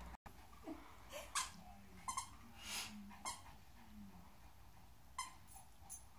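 A Yorkshire terrier and a pit bull puppy at play, quiet overall: a few soft, short, low dog vocalisations and scattered light taps.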